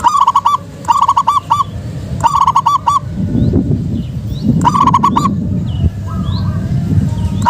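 Zebra dove (perkutut) cooing: four short phrases, each a quick run of a few rolled notes lasting well under a second, with pauses of one to two seconds between them. A low rumble runs underneath, and faint chirps of other small birds come in the second half.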